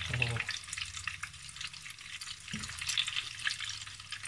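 Batter-coated romanesco florets deep-frying in hot oil: a steady sizzle made of many small crackles.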